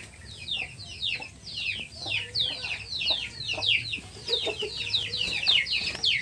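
Young chicks peeping continuously: many high, short peeps that slide downward in pitch, several a second and overlapping.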